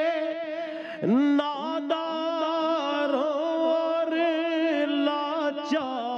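Male voice singing a naat in long, drawn-out notes with vibrato over a steady held drone; a new phrase starts with an upward swoop in pitch about a second in.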